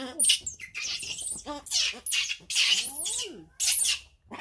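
Baby macaque screaming: a rapid run of short, shrill squeals and screeches, some rising and falling in pitch.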